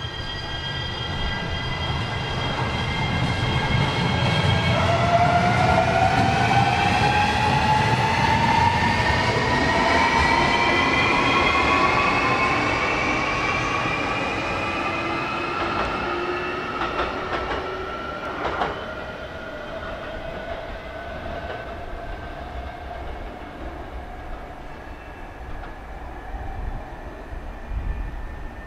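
JR Shikoku 7200 series electric train pulling away, its traction motors whining in several tones that rise together as it accelerates, over a low running rumble. A few sharp wheel clacks come about two-thirds of the way through, then the sound fades as the train moves off.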